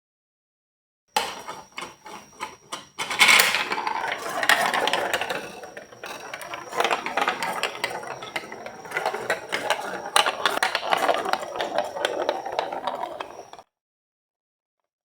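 Marbles rolling and clattering down a plastic Lego Duplo block track. A few separate clicks come first, then about ten seconds of dense, rapid rattling that stops suddenly.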